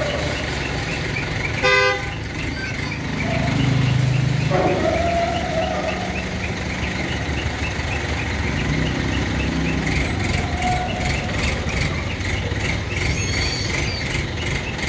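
Heavy vehicle engine running steadily while a machine is lifted, with a short horn toot about two seconds in. The engine note swells briefly around four seconds in.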